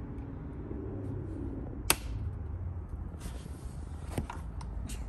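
Pet door flap being moved: a sharp click about two seconds in, a brief swish a little later, then two lighter clicks.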